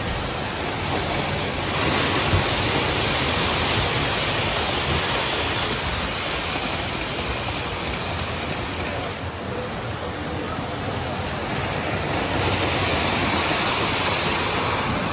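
Steady rushing rumble of O gauge model trains running on metal track, growing louder about two seconds in and again near the end as cars pass close by.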